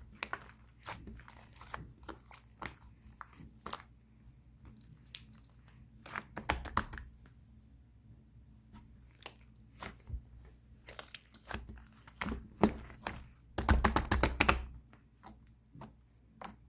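Close, irregular crackling and clicking from something being handled, with a dense burst of louder crackles near the end.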